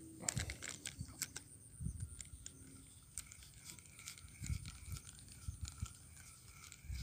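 Faint scattered clicks and rustles from a spinning rod and reel being handled while a lure is worked, with a few dull thumps.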